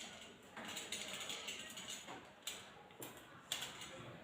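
Faint clicks and rasping from a small hand tool working a cable end: a click at the start, a scraping stretch, then a few sharp clicks about half a second apart.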